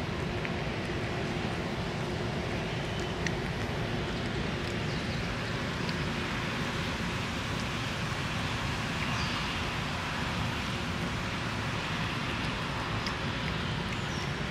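Steady rumble of road traffic in the background, with a few faint clicks of a calico cat chewing food from a metal bowl.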